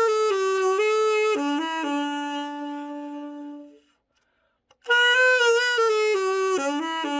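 Müller Germane-37 tenor saxophone played solo, a play test after its complete overhaul: a falling phrase ending on a held note that fades away, a short pause, then a new falling phrase.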